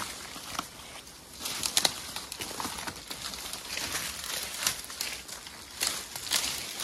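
Irregular rustling and crackling of dry leaves, twigs and branches, as a person in a bee suit pushes through brush and steps over the leaf litter.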